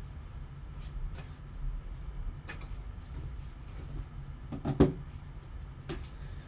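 Gloved hands unpacking a trading card box: light rustling and soft knocks of cardboard, a foam insert and a plastic card holder, with one sharp knock a little under five seconds in.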